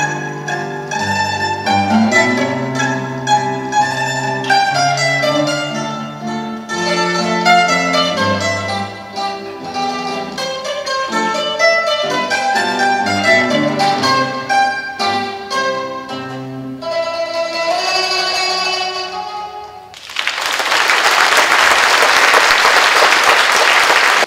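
Mandolin and classical guitar duet: plucked mandolin melody over the guitar's bass notes, closing on a held, ringing chord. Near the end the music stops and the audience applauds loudly.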